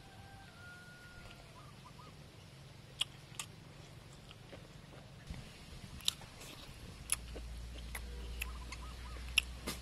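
A person eating: a spoon clicking now and then against a stainless steel plate, with mouth sounds of chewing. Hens cluck faintly in the background, and a low rumble comes in about two-thirds of the way through.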